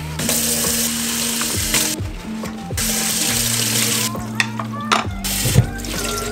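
Kitchen tap water running into a stainless steel sink in stretches as dishes are rinsed by gloved hands, with a few sharp knocks of metal dishware against the sink.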